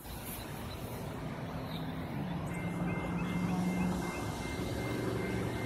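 Sperry rail inspection hi-rail truck approaching along the track, its engine and running noise growing louder, the engine note shifting about two seconds in. A steady high-pitched tone joins in about halfway through.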